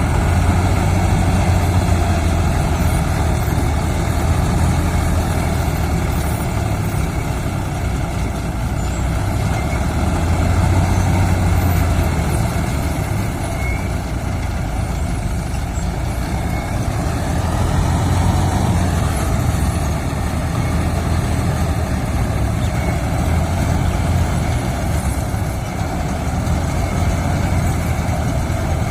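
Diesel engine of a John Deere 5310 combine harvester running steadily under load. Its low drone swells and eases every few seconds.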